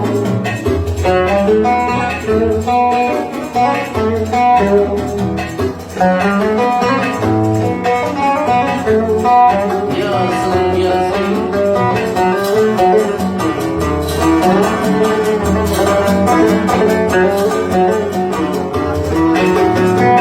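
Oud playing a Sanaani-style melody in quick plucked notes over a sustained low bass.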